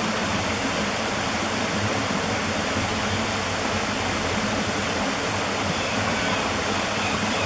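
Waterfall's falling water rushing steadily, an even hiss with no breaks.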